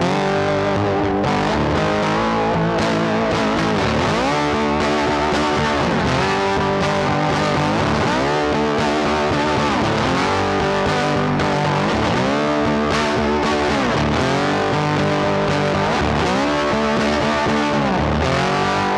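Background music led by guitar, its melody sliding up and down in pitch about every two seconds at a steady loudness.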